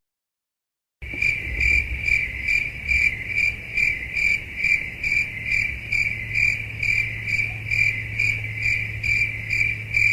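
Stock crickets-chirping sound effect, the kind used to mark an awkward silence: a cricket's high chirp repeating about twice a second over a low steady hum, starting about a second in.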